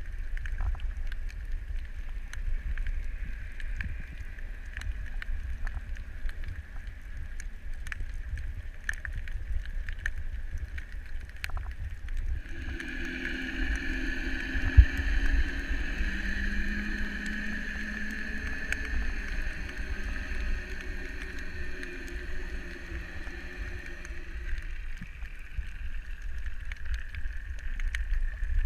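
Underwater ambience: a steady low rumble with scattered faint clicks. About halfway in, a steady hum of several tones, like a distant motor heard through the water, comes in for about twelve seconds and then fades, with one sharp knock early in it.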